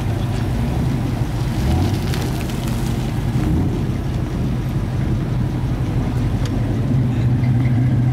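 A 1968 Ford Mustang's engine idling steadily with a low, even rumble.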